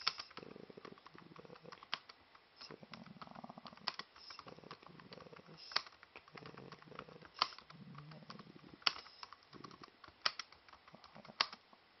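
Typing on a laptop keyboard: a quick, uneven patter of key clicks, with a sharper, louder keystroke about every one and a half seconds.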